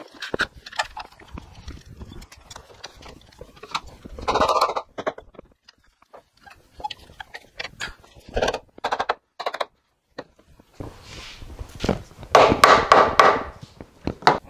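Scattered knocks, clicks and clatter of a metal bar clamp and wooden chair parts as the clamp is fitted and tightened across the glued-up frame. Two louder rough, scraping stretches stand out, a short one in the first third and a longer one near the end.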